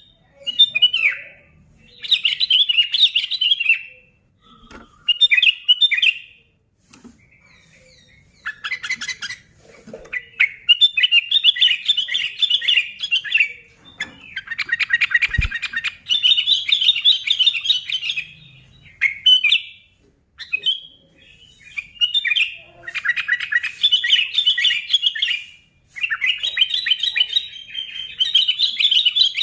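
Sooty-headed bulbul (kutilang) singing: phrases of rapid chattering notes, each a second or two long, with short pauses between them. There is one brief low thump about halfway through.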